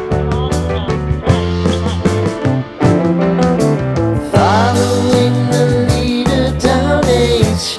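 Background music with a steady beat and bass line; a voice sings over it from about halfway in.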